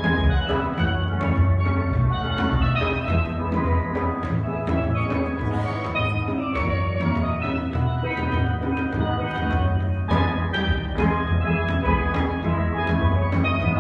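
Steelpan music: quick runs of struck, ringing pan notes over a steady bass line and a drum beat.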